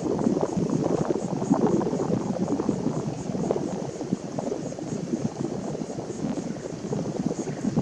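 Steady, irregular rushing noise of wind buffeting the microphone outdoors by open water.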